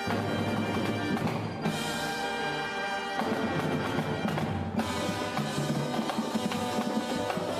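A police concert band playing: brass and woodwinds in sustained chords over drums and percussion.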